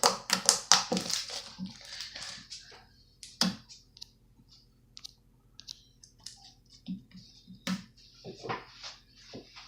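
Slime being handled and squeezed by hand, giving irregular crackles and sticky clicks: dense for the first couple of seconds, then scattered single clicks.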